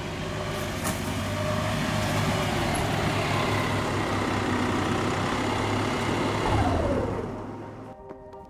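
A road vehicle passing close, with engine and tyre noise that builds and holds. Its pitch falls near the end as it goes by, and the sound cuts off suddenly about 8 seconds in.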